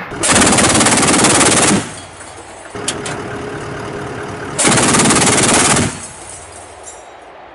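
Automatic weapon fire in two long sustained bursts: one of about a second and a half, then another of a little over a second about three seconds later, with a single sharp crack in between.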